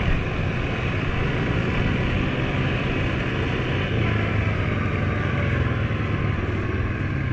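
Suzuki KingQuad ATV engine running steadily while riding along a dirt trail, heard from the rider's seat, under a steady rushing noise.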